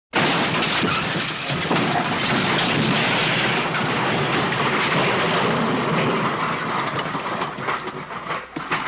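A cartoon sound effect of a big bar fight: a dense, continuous din of crashing, banging and clattering. It thins into a few separate crashes near the end.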